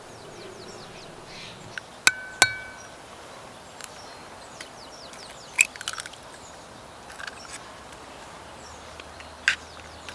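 Hard objects clinking against each other: two sharp ringing clinks about two seconds in, then scattered lighter taps and clicks, over a steady outdoor background with faint bird chirps early on.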